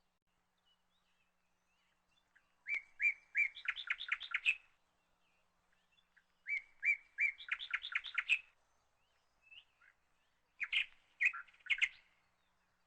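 A chirping phrase repeated three times, a few seconds apart. Each phrase is a few short, clear notes followed by a quick run of chirps, and the last phrase is shorter.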